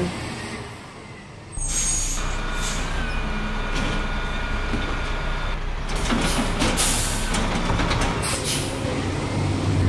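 A garbage truck's diesel engine starts running steadily about a second and a half in. A steady hydraulic whine follows as the side-loader arm lifts, then clanks, bangs and hisses as the load is tipped into the hopper.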